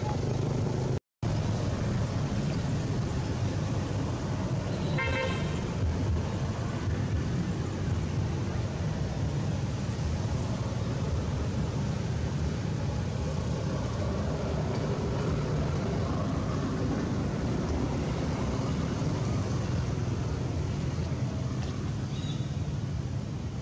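Steady low rumble of road traffic, with a short car horn toot about five seconds in. The sound cuts out completely for a moment about a second in.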